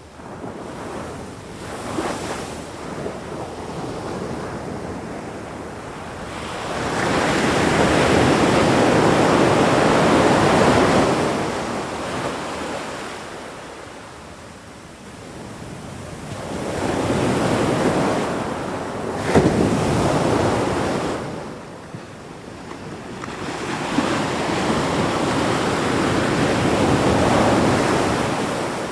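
Ocean waves surging and breaking on a shore in slow swells. Each rush builds over a few seconds and then draws back, with three large surges and a brief sharp crack of spray in the middle one.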